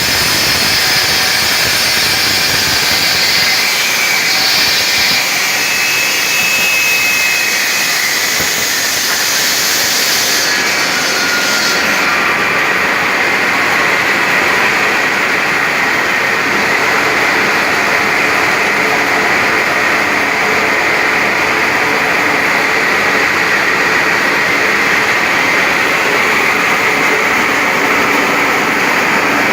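Stone-cutting machine running steadily and loud, a rushing mechanical noise with a faint high ring; about twelve seconds in the highest hiss drops away and the sound turns duller.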